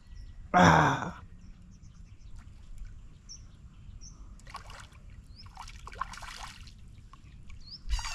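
Water splashing in a few short bursts as a bighead carp, hooked by the tail, thrashes at the surface. A short loud cry comes about half a second in, and small birds chirp faintly.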